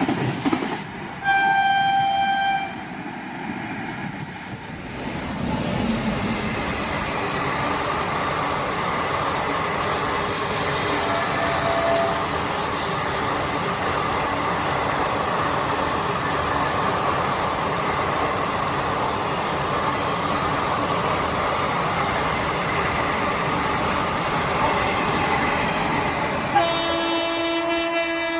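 Electric locomotive horn sounding once briefly, then a train passing at speed with a steady rushing noise of wheels on rails for about twenty seconds. The horn sounds again near the end.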